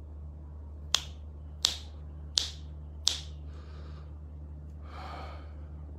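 Four finger snaps, evenly spaced about two-thirds of a second apart, over a low steady hum.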